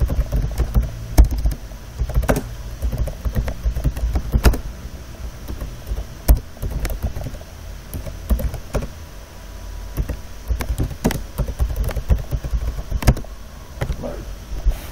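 Computer keyboard typing: irregular clicks of keystrokes over a steady low hum.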